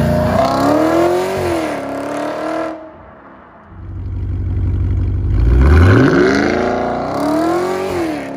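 Audi RS5's V8 through an Armytrix valved exhaust, accelerating hard twice. Each time the revs climb, dip briefly at an upshift and pull on again before easing off. A low rumble about four seconds in leads into the second run, in Dynamic mode.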